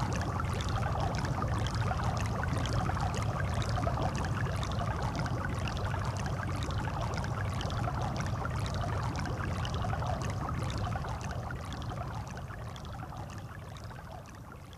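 Hot tub water bubbling and churning in a steady rush, fading out over the last few seconds.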